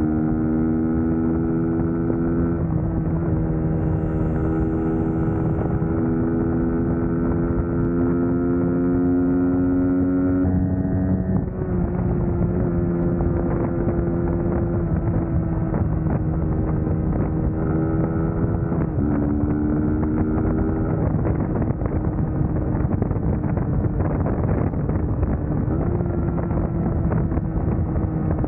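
Suzuki GSX-S150's single-cylinder engine running under way, its note drifting slowly and changing pitch suddenly several times, with wind noise on the microphone.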